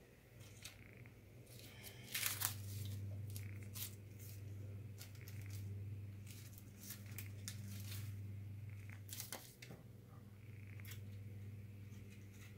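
Thin tissue paper of a gold-leaf booklet rustling and crinkling, with light clicks of metal garnishing tweezers, loudest in a short flurry about two seconds in. A low steady hum runs under it from then on.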